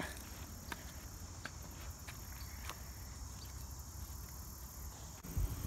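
Insects chirping in a steady, even high drone, with a few faint clicks and a low rumble underneath.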